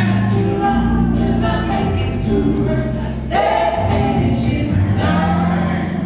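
Live gospel music: a vocal group singing together over electric bass, a drum kit and keyboard, with a steady drum beat.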